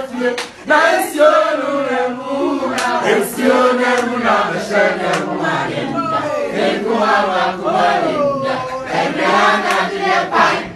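A man singing loudly, with other voices chanting along in a group sing-along.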